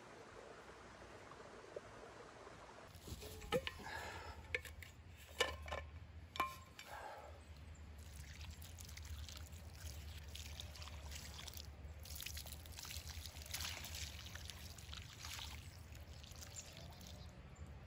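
Water poured from an insulated water bottle onto loose soil at the base of a newly planted shrub, trickling and splashing steadily as it waters the planting in. A few sharp knocks and clicks come before the pour, about four to six seconds in.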